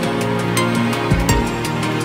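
Electronic background music with a steady beat over held synth chords, with a deep falling bass note about a second in.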